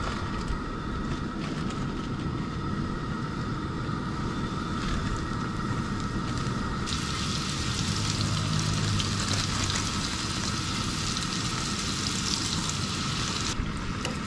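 Floured chunks of panfish frying in hot oil in a skillet on a gas camp stove: steady sizzling over the low rush of the burner flame. The sizzle turns suddenly much louder and brighter about seven seconds in, as more floured pieces go into the oil, and drops back sharply shortly before the end.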